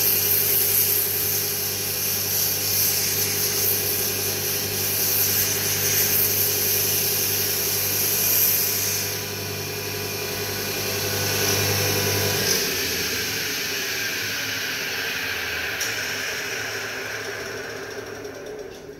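Mini CNC wood lathe spindle running with a steady whine, while sandpaper pressed against a small spinning wooden sphere hisses as it polishes it. The hiss eases about nine seconds in, the lower hum drops out a few seconds later, and the machine's sound fades over the last few seconds.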